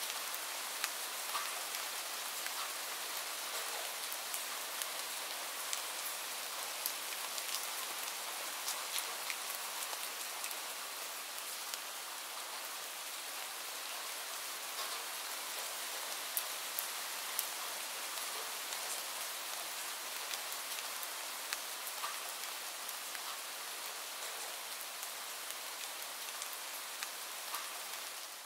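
Steady rain: an even hiss with many single drops ticking through it.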